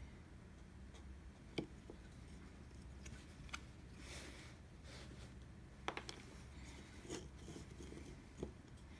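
Bench chisel paring out a recess in a wooden block by hand: a few faint, sharp, irregularly spaced clicks and crunches as the edge cuts into the wood, with a short scraping rustle about four seconds in.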